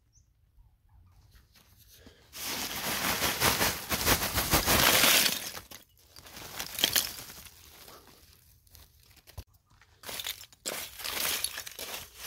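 Lump charcoal poured from a sack into an earth pit: about two seconds in, a few seconds of dense clattering and crunching as the lumps tumble in, then a shorter rattle. Near the end come scraping clinks as the lumps are shifted with a stick.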